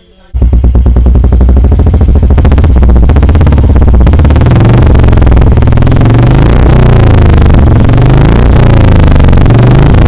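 Royal Enfield Bullet 350's single-cylinder engine exhaling through a black Wild Boar straight-pipe silencer packed with ceramic wool: a loud, bassy, fast thump that cuts in about a third of a second in. The throttle is blipped a few times in the second half.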